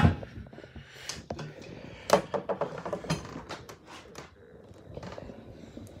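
Handling noise: a sharp knock at the start, then a run of clicks and knocks as things are moved about.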